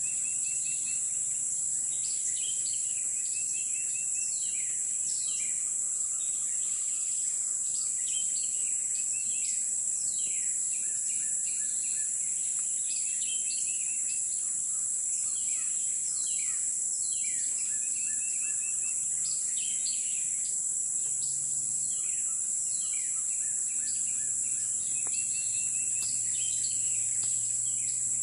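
A steady high-pitched insect drone, with birds calling over it in many short sweeping chirps and brief trills.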